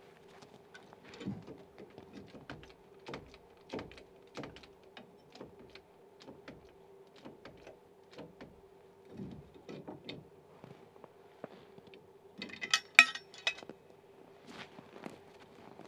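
Irregular light knocks and taps of a hand tool worked against a log sill and its stone foundation, with a quick run of sharp, bright clinks about thirteen seconds in. A faint steady hum underneath.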